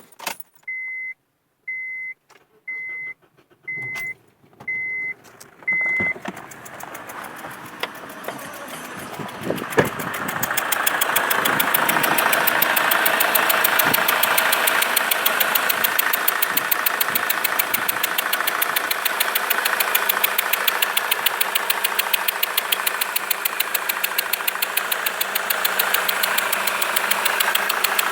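Six short electronic warning beeps about once a second, then the Honda Accord 2.2 i-CTDi diesel engine comes up and settles into a steady idle with a fast, even knock, which the owner puts down to leaking injectors.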